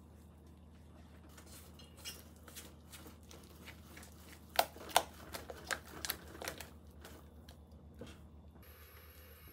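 A utensil stirring pancake batter in a stainless steel bowl, clicking and scraping against the metal, with two sharp knocks about halfway through and lighter clicks around them.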